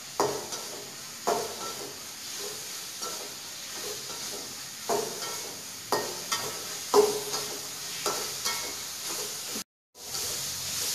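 Fried potato cubes and chilli spice paste sizzling in a wok while a metal spatula stirs them through, with sharp knocks of the spatula against the pan now and then. The sound cuts out briefly near the end.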